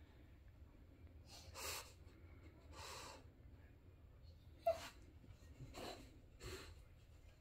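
A bulldog's short, noisy breaths and snuffles, about five of them at uneven intervals, with one sharp click midway.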